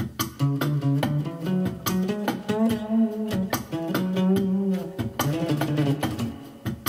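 Improvised instrumental music: a short-scale Ibanez Mikro bass guitar playing a line of single notes over a drum-machine beat.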